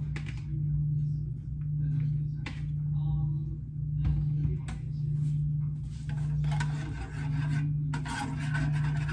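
Food-prep scraping at a kitchen counter: rasping, rubbing strokes, a few short ones at first, then two longer spells of rapid strokes in the second half.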